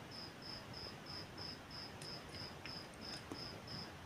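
A cricket chirping faintly and steadily, short high chirps about three a second, with a few faint taps.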